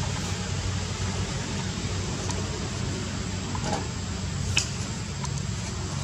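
Steady low hum with an even hiss behind it, and a couple of short high clicks or chirps about halfway through.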